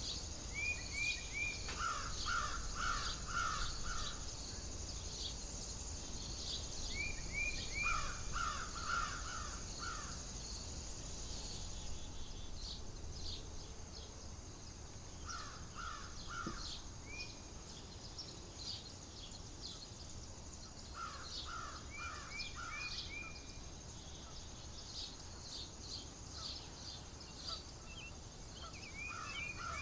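A bird calling in short series of three to five quick notes, a series every five to seven seconds, over a steady high drone and a low wind rumble.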